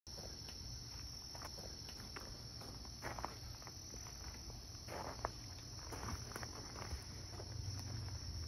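Steady high-pitched chirring of an insect chorus in outdoor ambience, with faint scattered rustles, a little louder around three and five seconds in.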